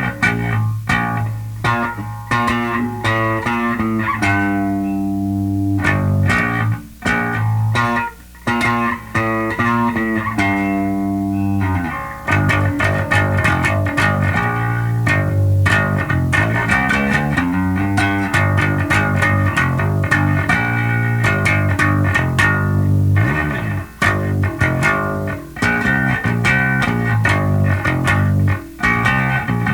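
Electric bass riffs on a Squier Mini P Bass with DiMarzio Relentless pickups, played through a Sound City Master Lead 50 tube amp head and Schroeder 12PL cabinet tamed by a Two Notes Captor X attenuator. Quick note runs alternate with held notes, and a steady amp feedback tone is held under the playing for much of the time.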